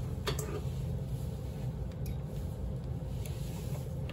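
Steady low background hum, with a few faint clicks from handling the lab bench instruments and test leads.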